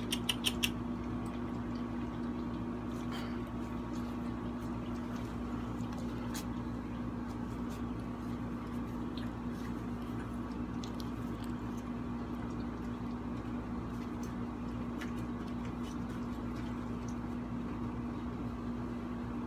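A steady low hum with even background noise, unchanging throughout, and a few faint scattered clicks.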